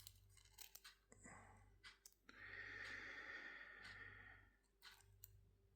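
Near silence, with a faint breath out lasting about two seconds from a little past two seconds in, and a few faint clicks.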